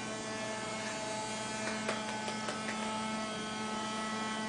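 Small vacuum cleaner motor running with a steady hum, pushed along by a toddler, with a few light clicks about halfway through.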